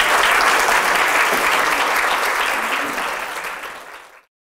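Audience applauding, a dense patter of many hands clapping that dies away near the end and then cuts off.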